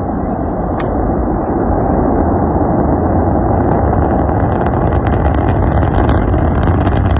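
Steady rumbling roar of a rocket, growing slowly louder, with crackling coming in from about four seconds in.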